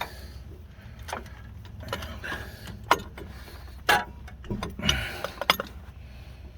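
Scattered sharp metal clicks and clinks, about five spread across a few seconds, from hand tools and brake parts being handled, over a steady low hum.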